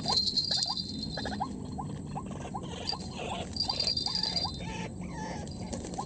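White-breasted waterhen calls: short rising notes repeated about twice a second, as used to lure the birds into a trap, over a steady high drone of insects.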